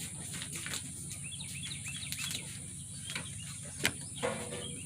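Birds chirping in a quick run of short chirps, with a few sharp clicks in between.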